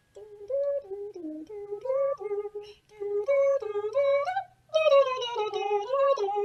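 Unaccompanied female singing: a simple tune sung in short phrases of held, stepping notes, with no instruments, the second half a little louder.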